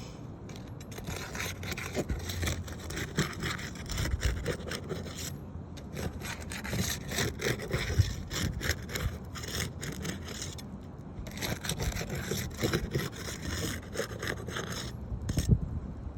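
Repeated rough scraping strokes in three spells of several seconds with short pauses between, as a damaged roof shingle is worked loose or cut for replacement.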